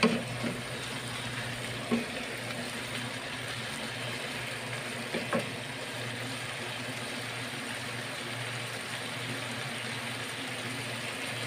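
Green chilli stir-fry with a little added water sizzling and bubbling steadily in a frying pan as the liquid cooks down. A wooden spatula knocks against the pan three times: at the start, about two seconds in and about five seconds in.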